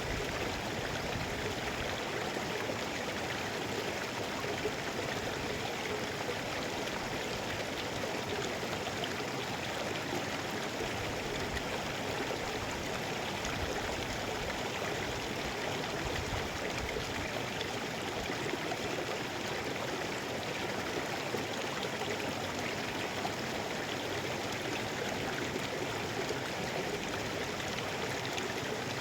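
Mountain stream flowing over rocks, a steady, even rush of water with no change throughout.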